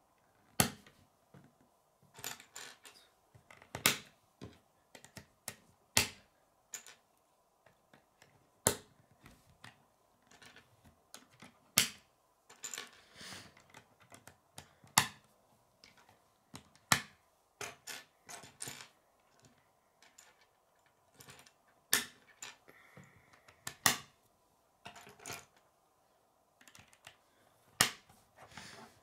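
K'nex plastic rods and connectors clicking sharply as they are snapped together, one click every second or two at irregular intervals, with softer handling rustle in between.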